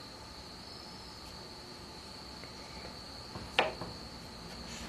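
Steady high-pitched trill of crickets, with one sharp wooden clack from the popsicle-stick and clothespin toy gun about three and a half seconds in.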